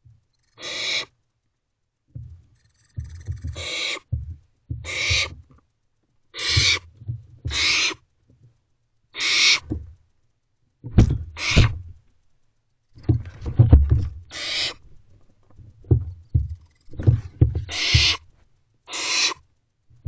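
Barn owlets hissing their begging screeches: about eleven rasping hisses, each about half a second long, at uneven intervals. Under them come low thumps and rumbles as the crowded owlets jostle in the nest box.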